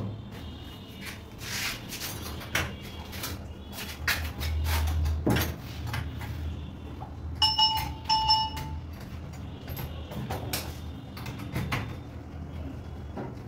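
Metal parts of a round knob door lock clicking and knocking against the wooden door as the lock body is worked into its hole by hand. Two short beeping tones sound about halfway through.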